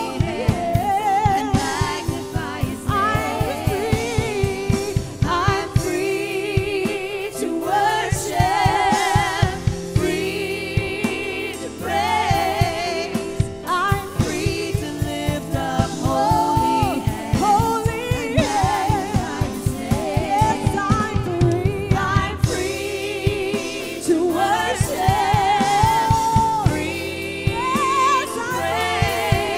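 Women's voices singing a gospel praise song together in parts, with a band behind them keeping a steady beat.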